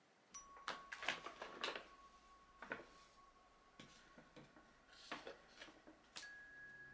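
Large paper shopping bag crinkling and rustling in short crackles as it is set down and a hand reaches in past its handles.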